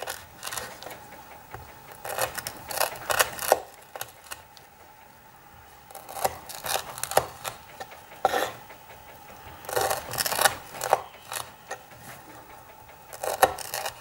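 Chris Reeve Large Inkosi folding knife's S35VN blade slicing through white twisted rope on a wooden cutting board, in about six bursts of quick cuts with sharp clicks and scrapes. The blade is very sharp and glides through the rope easily.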